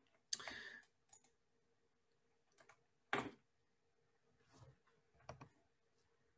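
Near silence broken by a few faint, short clicks and rustles on a video-call microphone, the sharpest about three seconds in.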